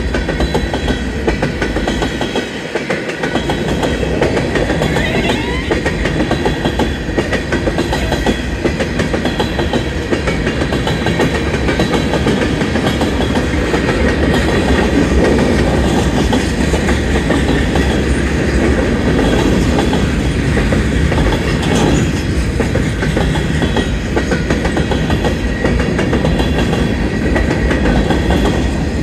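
Freight cars of a Union Pacific manifest train rolling steadily past over a grade crossing: a continuous rumble with the clickety-clack of steel wheels over the rails.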